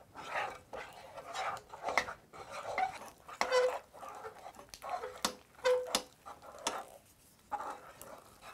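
Wooden spoon stirring a thick, glue-like playdough mixture in a glass pot as it thickens over the heat: irregular scraping with sharp knocks of the spoon against the glass.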